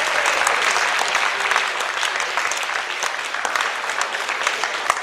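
Audience applauding, the clapping slowly thinning out and getting quieter.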